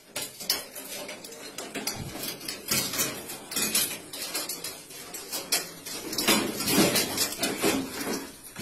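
Steel dishes and utensils clattering and knocking in a stainless-steel dish rack as a hand moves through it, in quick irregular clinks.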